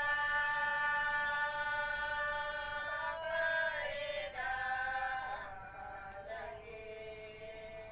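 A high singing voice holding long, steady notes of a slow prayer song: one long note for the first three seconds, then shorter notes stepping between pitches, growing softer in the second half.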